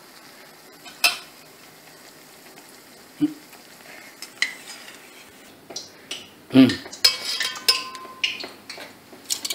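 Malpua frying in hot oil in an aluminium kadai with a faint steady sizzle, and a couple of knocks of a perforated slotted spoon. From about halfway, steel tongs clink and clatter against a steel pot.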